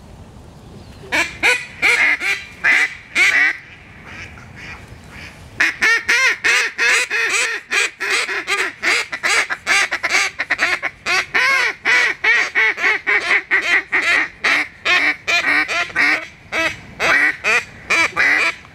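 Duck call blown in hen-like quacks to lure drakes: a handful of single quacks, a short pause, then a long fast run of quacks.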